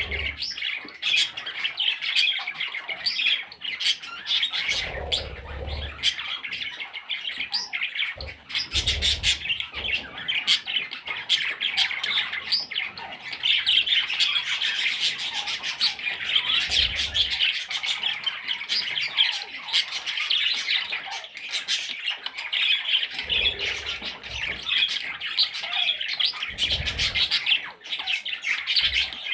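Budgerigar chicks squawking in a dense, continuous raspy chatter, with a few dull low thumps here and there.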